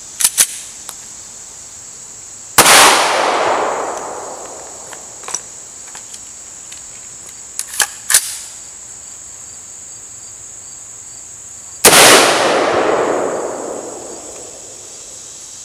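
Two loud gunshots about nine seconds apart, each echoing away over a couple of seconds; the second is an AR-15 rifle firing .223. Sharp metallic clicks of gun handling come shortly before each shot.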